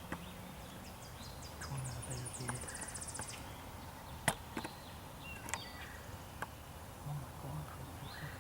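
Quiet outdoor ambience: a wild bird gives a fast trill of high notes that quickens, about two seconds in, with a few sharp clicks, the loudest about four seconds in.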